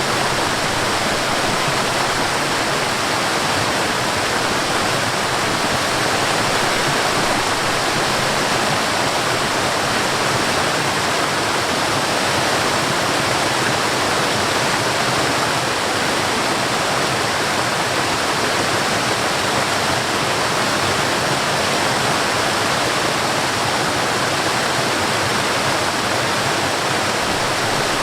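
Steady rushing water of a stream flowing over a small waterfall, an even, unbroken wash of noise.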